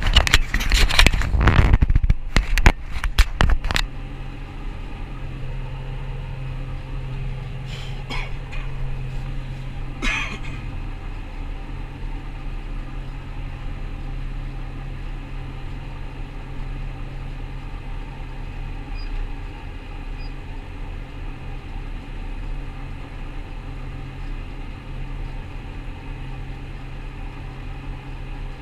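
Rostselmash Vector 425 combine harvester running with a steady low drone. Loud irregular knocking and clattering fills the first four seconds, and two single knocks come later.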